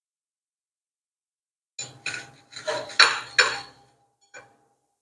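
Stainless steel mesh strainer knocking and scraping against a ceramic plate as crisp fried chicken strips are tipped out onto it: a cluster of clattering knocks over about two seconds, then one light knock.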